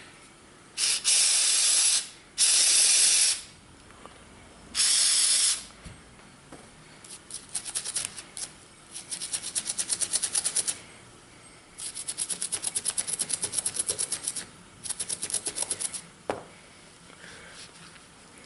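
Aerosol gun cleaner sprayed in three short hissing bursts onto the Glock 30's recoil spring, then a longer stretch of quick, scratchy rubbing strokes, several a second, in a few runs.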